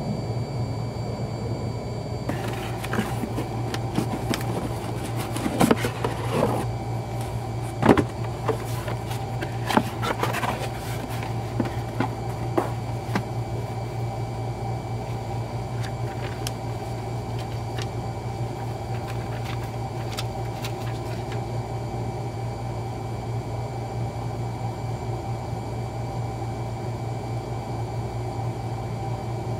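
A steady low mechanical hum, with scattered sharp clicks and knocks during the first half.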